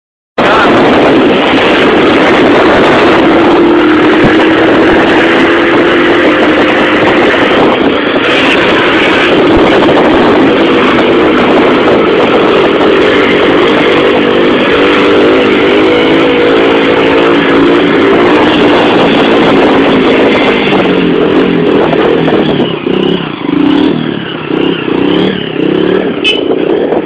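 Motorcycle engine running at speed under heavy wind rush on the microphone, its note rising and falling with the throttle. In the last several seconds the loudness swells and dips.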